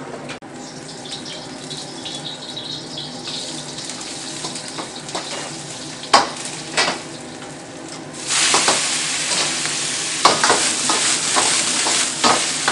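Wok stir-fry: garlic frying gently in the wok over a gas wok burner, with two sharp clanks of the metal ladle about six seconds in. At about eight seconds sliced Chinese leaf goes into the hot wok and a loud sizzle takes over, with the ladle scraping and clanking against the wok as it is stirred.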